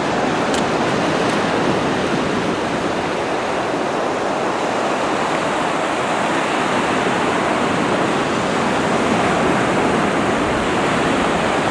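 Atlantic surf: ocean waves breaking and washing up the beach in a continuous rush, swelling slightly now and then.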